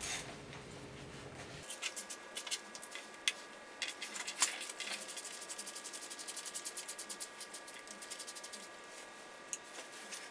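Hand tools at work on a car engine: light rubbing and scraping, with a run of rapid, even clicking at about eight clicks a second for a few seconds in the middle.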